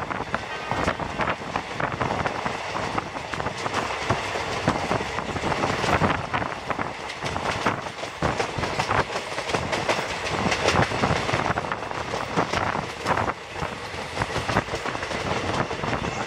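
Passenger train coaches running at speed, wheels clattering irregularly over the track over a steady running rumble, heard from an open coach doorway.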